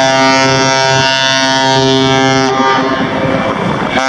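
Ship's horn of the bulk carrier MV Federal Churchill sounding a long, steady, deep blast. The low part drops away about two and a half seconds in, leaving a fainter, higher tone. The horn sounds again at the very end.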